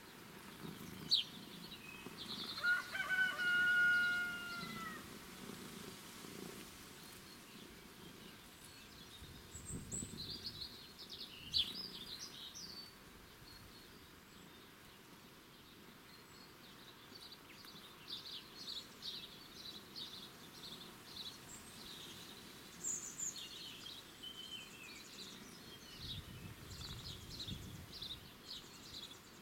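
Songbirds chirping and singing in short high phrases on and off, over a faint outdoor background. About three seconds in comes one long, drawn-out call of about two seconds that dips in pitch at the end; it is the loudest sound.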